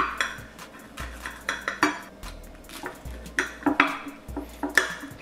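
Knife and metal spoon clinking and scraping against a glass dish while cutting soft patties, in irregular sharp clicks, several of them loud.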